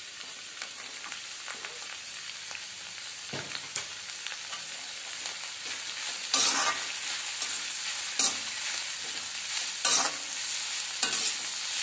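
Onion, cabbage, tomato and capsicum stir-frying in oil in a metal wok on high heat, a steady sizzle. A slotted metal spatula scrapes and knocks against the pan every second or two, louder from about halfway through.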